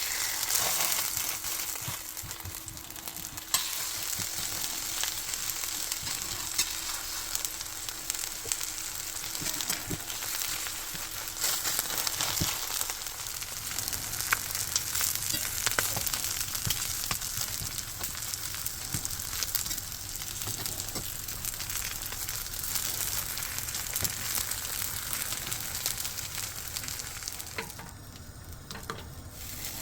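Food frying in oil in a pan: a steady sizzle with many small crackles and pops, which eases briefly near the end.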